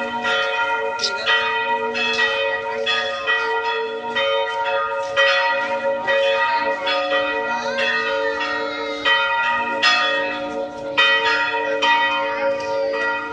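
Church bells pealing, several bells struck in quick succession at about two strokes a second, their ringing tones overlapping and sustaining between strokes.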